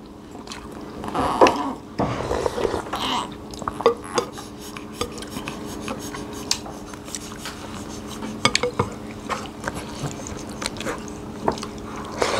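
Spoons clinking and scraping against ceramic plates and a glass soup bowl, with scattered small clicks of eating, the loudest a little over a second in, over a steady faint low hum.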